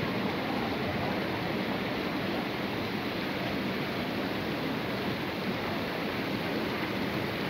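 Steady rush of water spilling over the steps of a tiered fountain cascade into a pool.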